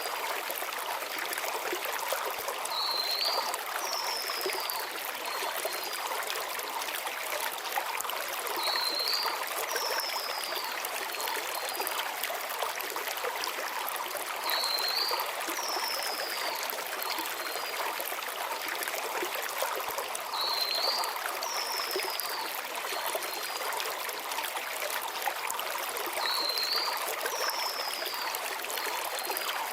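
Shallow stream running steadily over stones, with a small songbird's high phrase (a quick rising note, then a falling slur and a few faint short notes) repeating about every six seconds.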